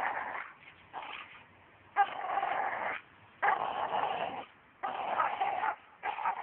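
An American Staffordshire terrier making a run of dog sounds while nosing in dry grass: about six bursts, each up to about a second long, with short pauses between.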